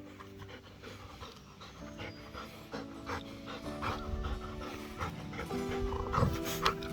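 A dog panting in quick, repeated breaths that grow louder toward the end, over soft background music.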